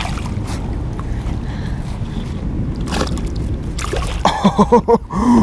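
Largemouth bass thrashing and splashing at the surface beside an inflatable kayak as it is grabbed by the lip and lifted out, with a few short sharp splashes over a steady low rumble.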